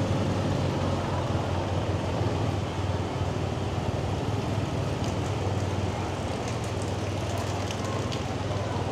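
Motorbike engine running steadily while riding, with wind noise on the microphone.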